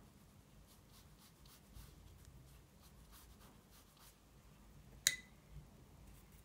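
Faint soft strokes and dabs of a round watercolour brush on paper, working paint into a wet wash. About five seconds in comes a single sharp click with a brief ring, the loudest sound.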